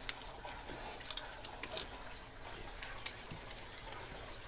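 Scattered light clicks and taps of metal padlocks being handled and set down.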